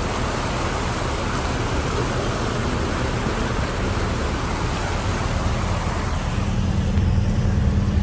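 Fast-flowing floodwater rushing in a steady noisy wash, with a vehicle engine running underneath. About three-quarters of the way through, the engine's low hum becomes steadier and a little louder.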